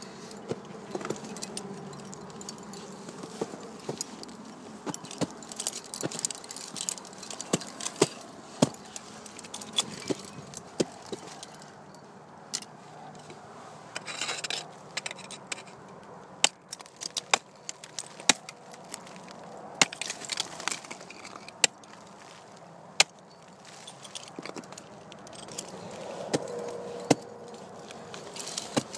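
Ice tools being swung and planted into the ice as the climber moves up, making a string of sharp, irregular strikes, with the metallic clinking of carabiners and climbing hardware.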